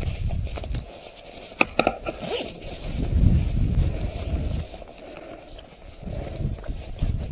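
Low rumbling buffets and rustling handling noise on the microphone, coming in swells. About a second and a half in there is a sharp click and a short burst of pitched rattling.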